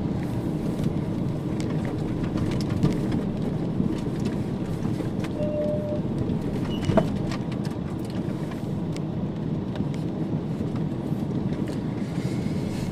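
Fiat Fiorino van driving off-road: a steady engine and rolling rumble, with a couple of small knocks or rattles, about four and seven seconds in.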